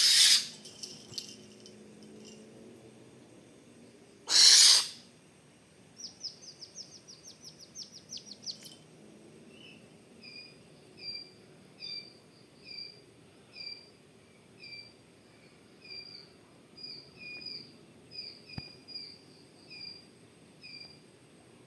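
Owl calls: two loud, harsh, hissing screeches a few seconds apart, then a rapid run of short chittering notes, then a short chirp repeated about once a second.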